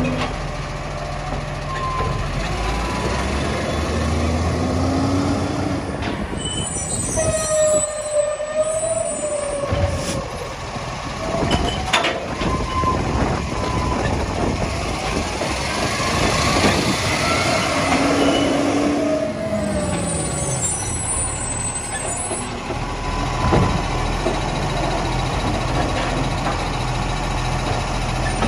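Iveco side-loader garbage truck's diesel engine running while its automated arm lifts, tips and lowers wheelie bins: a hydraulic whine that rises and falls as the arm moves, with a few sharp knocks and brief high squeals from the mechanism.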